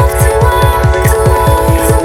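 Electronic dance music with rapid, evenly pulsing bass hits that drop in pitch, over sustained synth chords.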